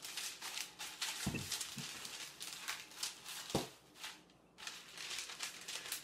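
Baking paper crinkling and rustling as a wooden rolling pin is rolled back and forth over it on a wooden tabletop, with two brief low thumps about a second in and again past three seconds.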